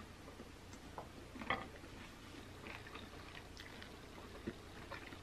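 Faint chewing and mouth sounds of someone eating a chicken wing off the bone, with scattered small clicks and smacks; two are a little louder, about a second and a half in and near the end.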